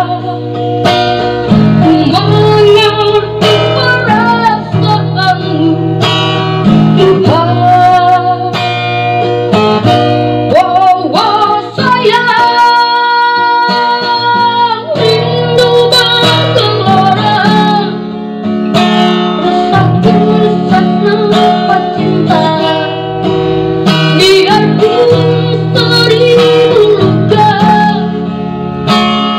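A woman singing a pop song to her own strummed acoustic guitar, holding one long note partway through.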